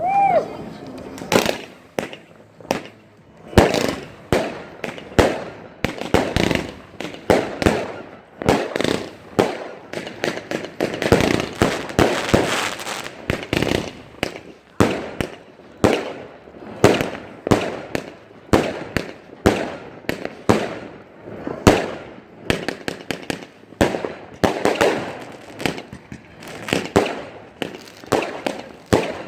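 New Year's Eve fireworks: a steady barrage of irregular bangs and pops from rockets and firecrackers. A stretch of dense crackling comes near the middle.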